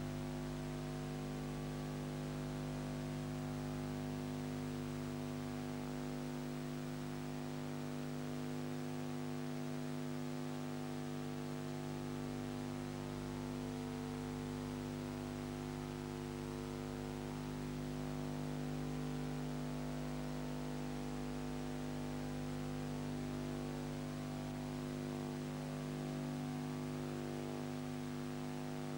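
Steady electrical mains hum with an even hiss, no other sound.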